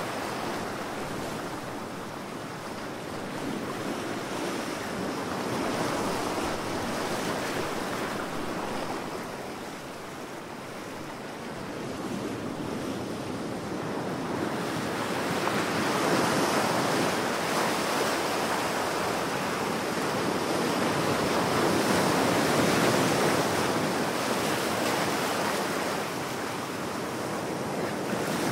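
Ocean surf: a continuous rush of breaking waves. It eases off about ten seconds in, then builds and swells louder through the second half.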